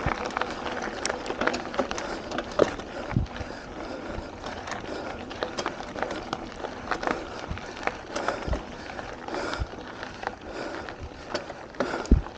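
Mountain bike riding over a gravel trail: tyres crunch on loose gravel and the bike rattles and clicks all the way, with a hard knock near the end.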